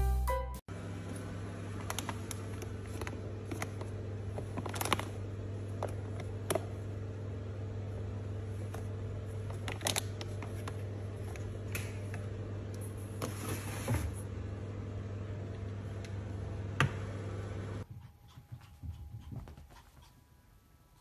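A cat rummaging in a kitchen cupboard: scattered light clicks and rustles of jars and packets over a steady low hum. The hum stops near the end and it goes much quieter.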